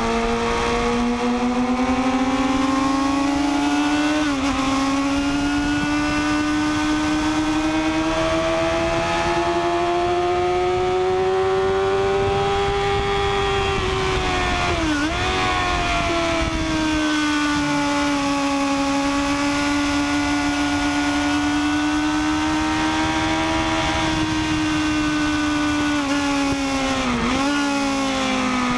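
Onboard sound of a Triumph Daytona 675 sport bike's engine running on a wet track. The note is held and slowly rises and falls, with three brief sharp dips in pitch at about four, fifteen and twenty-seven seconds in, over a steady rushing noise.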